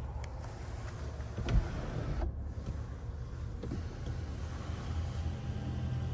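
Power panoramic sunroof of a 2023 Chevrolet Blazer running its electric motor as the roof panel slides, with a steady low whir. A single knock comes about one and a half seconds in.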